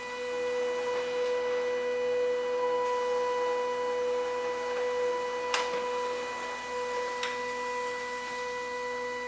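Pantum M6559NW laser all-in-one's automatic document feeder and scanner running as it pulls pages through: a steady mechanical whine, with a sharp click about five and a half seconds in and a lighter one near seven seconds.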